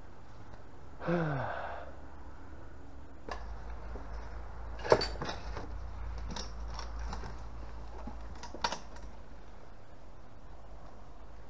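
Wooden ladder and shelving being handled and climbed: scattered knocks and clicks of wood, the loudest about five seconds in and another near nine seconds. About a second in there is a short sound that falls in pitch.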